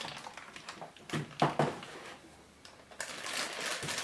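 Cardboard box being handled and cleared away: a few light clicks, two louder knocks about a second and a half in, then rustling and scraping near the end.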